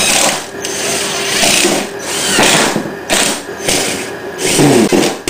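Small cordless drill running in a series of short bursts, about half a dozen, driving screws to fasten grid-tie inverters into a plastic box.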